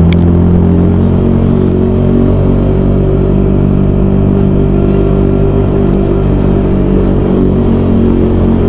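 Yamaha YZF R125 motorcycle's single-cylinder four-stroke engine running loud and steady while being ridden, its note holding at a near-constant pitch.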